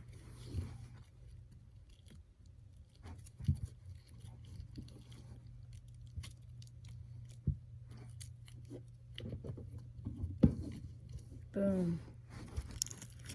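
Avalanche slime of clear and white glue being stretched, folded and kneaded by hand, giving scattered sticky clicks, squelches and a few sharper snaps over a low steady hum.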